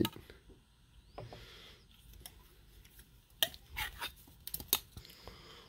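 Handling noise from a clear plastic ruler and a steel air hammer chisel bit being held together for measuring. A short scraping rustle comes about a second in, then a quick run of sharp clicks and taps between about three and a half and five seconds in.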